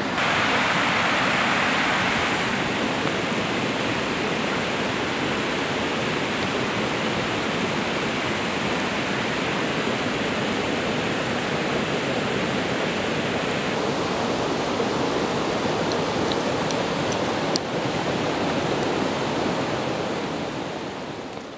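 Mountain river water rushing, a steady, even noise that fades out near the end.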